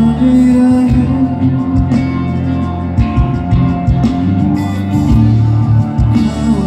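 Live rock band playing loud through a PA, the electric bass guitar prominent under drums and guitar, with some singing.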